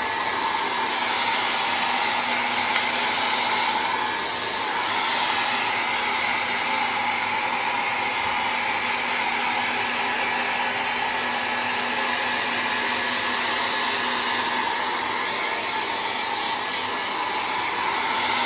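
Handheld hair dryer blowing steadily, switched off abruptly at the very end.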